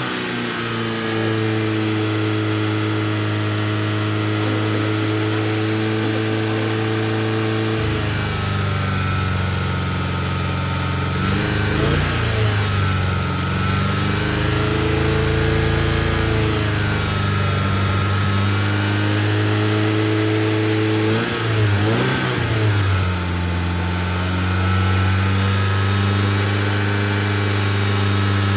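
First-generation DSM's engine running, its speed shifting up and down several times rather than holding a steady idle; the owner puts the uneven running down to bad fuel probably going through.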